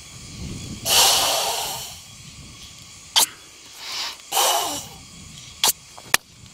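Forceful Sanchin breathing of a Goju-ryu karateka: a long, loud hissing exhale about a second in, then two shorter hissing breaths around four seconds, with a few short sharp smacks or sharp breaths in between and near the end.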